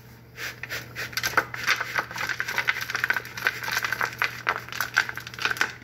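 Granola mix of oats, nuts and seeds tipped out of a bowl onto a greased metal baking sheet: a dense run of small clicks and taps as the pieces slide and land on the pan, stopping abruptly near the end.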